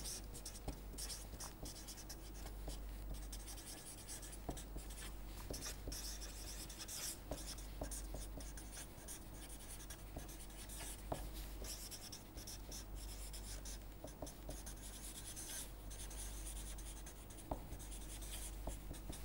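Felt-tip marker writing on paper: a run of short scratchy strokes with small ticks as the tip touches down and lifts.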